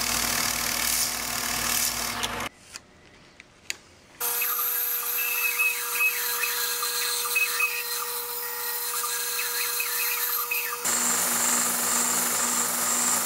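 Drill press running as its bit bores a counterbore into Baltic birch plywood, stopping about two and a half seconds in. After a short quiet gap, a bandsaw runs, cutting a rounded end on the plywood blank, with a steady tone and repeated short high chirps. From about eleven seconds a benchtop belt sander runs as the curved plywood edge is sanded.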